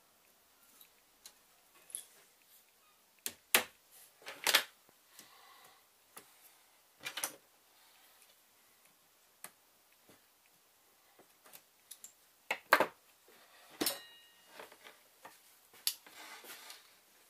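Irregular small clicks and sharp taps, with a few louder knocks, from hands handling model railway track, pins and tools.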